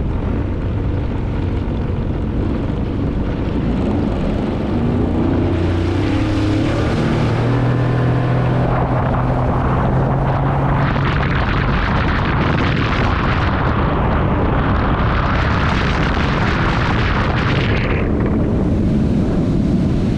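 Sea-Doo FishPro jet ski engine rising in pitch as the craft accelerates, then a loud rush of wind over the microphone at speed that eases off near the end.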